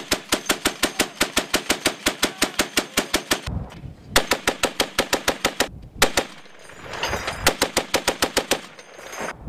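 Browning M2 .50-caliber heavy machine gun firing long bursts at about eight rounds a second, with two short pauses and one single shot between bursts.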